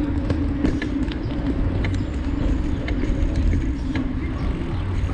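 Bicycle rolling along a bumpy dirt footpath: a steady low rumble and hum from the tyres and wind, with frequent small clicks and rattles as the bike jolts over the ground.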